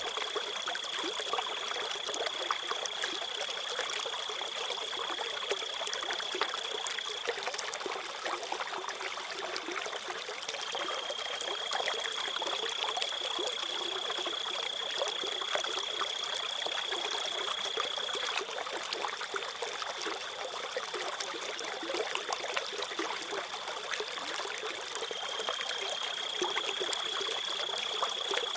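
Water trickling and gurgling in a stream, with crickets chirping as a steady high-pitched trill that breaks off twice for a few seconds and then resumes.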